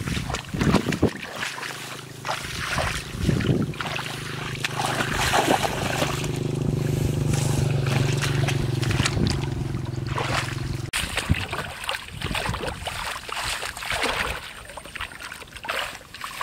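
Irregular splashing and sloshing of shallow water. A steady low hum runs under it from a couple of seconds in and cuts off suddenly about two-thirds of the way through.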